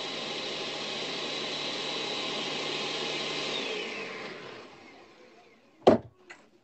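Electric blender running steadily as it blends crepe batter, then its motor winding down with a falling whine and fading out after about four seconds. A sharp knock near the end is the loudest sound.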